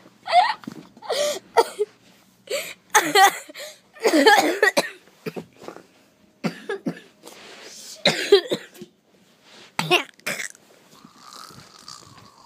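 A series of short, loud non-speech vocal sounds from people, about a dozen in all with short pauses between, some with a wavering pitch.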